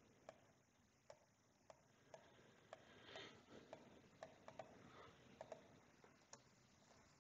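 Faint computer mouse clicks, about a dozen at uneven intervals, a couple of them in quick pairs like double-clicks, over near-silent room tone.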